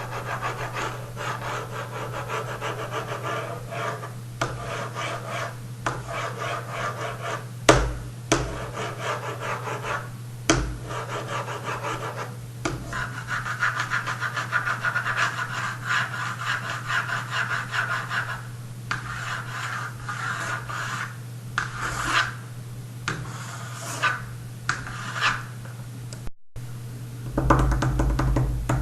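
Rapid, repeated scratching strokes over a steady low hum, with a few sharp knocks.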